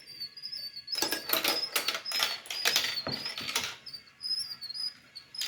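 Marbles clattering along a plastic marble run: a quick series of sharp clicks and knocks, thickest from about a second in, thinning out near the end, over a faint high wavering whine.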